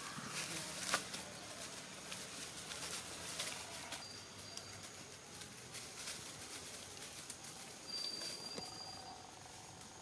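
Dry leaf litter crackling and rustling under macaques moving and handling leaves on the forest floor, with two brief high whistles in the background.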